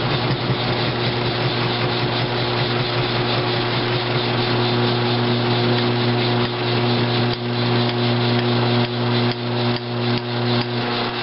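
Grizzly G1007 mill-drill running, its end mill face-cutting a cast iron valve seat: a steady motor hum under a dense, gritty cutting rasp. In the second half the cut turns uneven, with short scrapes and dips.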